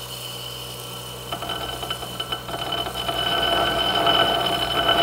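Electric 9-inch disc sander running with a steady hum while a steel knife blade is pressed flat against its paper abrasive disc, flattening the blade face. The rasp of steel on the abrasive gets louder about a second in and again about halfway through.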